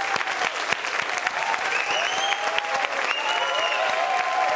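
Studio audience applauding steadily, with voices cheering over the clapping.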